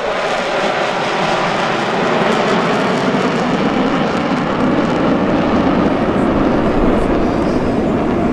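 Four F-16 Fighting Falcon jets flying past in formation: a loud, steady jet rush, with a tone that falls in pitch over the first couple of seconds.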